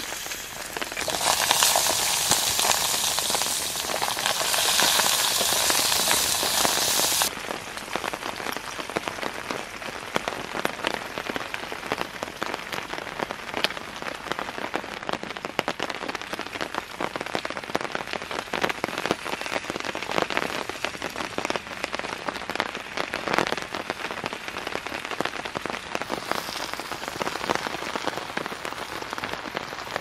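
Chopped food sizzling loudly as it hits the hot pot on a gas camping stove, a hiss that lasts about six seconds and then cuts off abruptly. After that, rain patters steadily on the tarp overhead, with scattered sharper drop hits.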